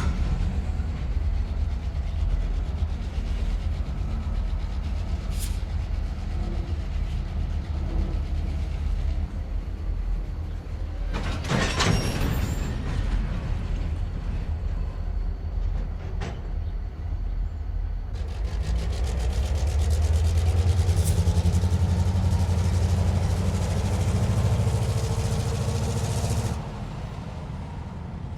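Railway yard ambience: trains giving a steady low rumble, with a sharp clank or screech about twelve seconds in. In the second half a louder rumble with a slowly rising tone builds up, then cuts off suddenly near the end.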